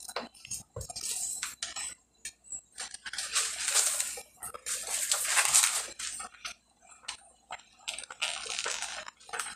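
A plastic spoon clicking and scraping against a metal pot while dry spaghetti is pushed down into boiling water. A few short knocks come in the first two seconds, then three longer scraping, rustling passes.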